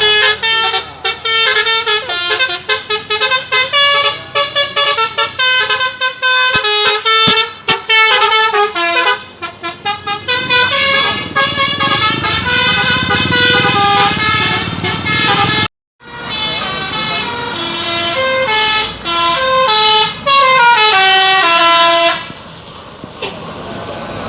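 Basuri "telolet" musical bus horns playing a quick melody of stepped notes. The sound cuts off suddenly just before 16 seconds in, then a run of notes steps downward, and near the end the horns stop, leaving quieter vehicle noise.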